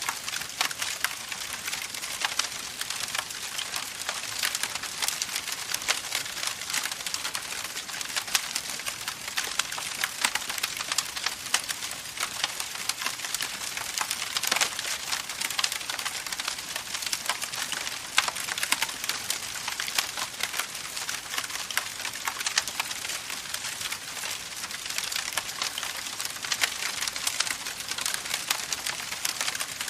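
Wood campfire burning, with a steady hiss and many small, sharp crackles and pops.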